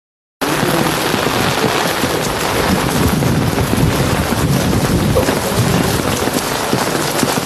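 A loud, steady hiss of outdoor noise with a fine crackling texture that cuts in abruptly just under half a second in.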